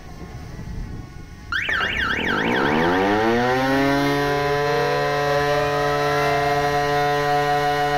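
Fire station electromechanical siren starting suddenly about a second and a half in and winding up in pitch, then settling by about four seconds into a steady, loud howl. It is sounding the W-Hour remembrance signal for the Warsaw Uprising anniversary.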